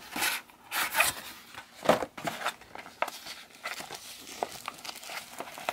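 Foil-backed paper wrapping crinkling as hands unfold it, in irregular crackles with a couple of louder ones about one and two seconds in.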